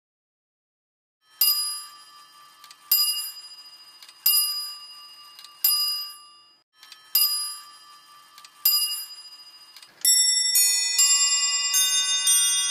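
Francis Bayley's 1735/40 wall clock striking the hour on its bell: six strokes about a second and a half apart, each ringing out. About ten seconds in, its chime of small bells starts a quick tune.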